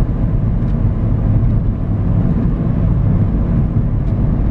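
A Volkswagen car being driven along a road, heard from inside the cabin: a steady low rumble of engine and road noise.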